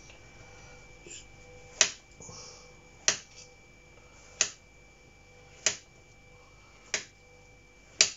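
Kitchen knife slicing down through a king bolete (porcini) mushroom and knocking on a plastic chopping board: six sharp knocks, one every second and a quarter or so.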